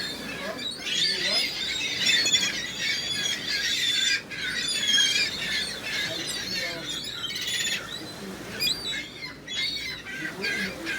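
A flock of gulls calling all at once, many high overlapping cries that thin out after about seven seconds.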